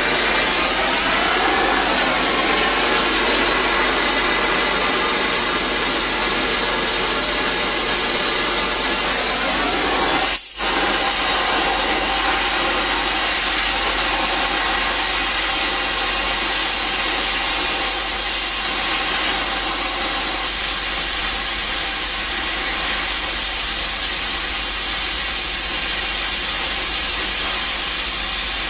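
Harris 50-3 oxy-acetylene welding torch with a number 6 heavy tip burning, its flame a steady loud hiss. The sound briefly drops out about ten seconds in.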